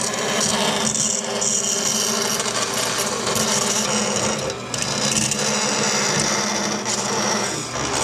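Vertical bandsaw running, its blade cutting through aluminum plate: a steady motor hum under the high hiss of the cut, which eases off briefly a few times as the piece is fed.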